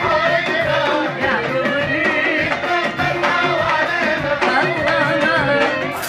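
Arabic pop song: a singer's ornamented, wavering melody over a band with a steady hand-drum beat.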